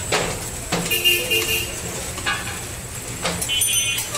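Busy street traffic rumbling steadily, with short vehicle horn toots about a second in and again near the end. A few sharp knocks of a metal ladle in an aluminium soup pot.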